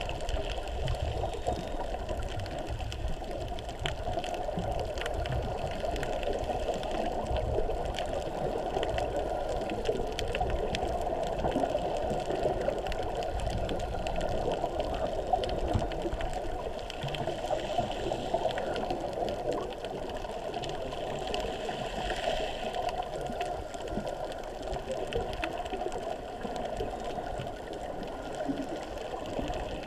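Underwater ambience heard through a GoPro's waterproof housing: a steady, muffled hum with constant fine crackling.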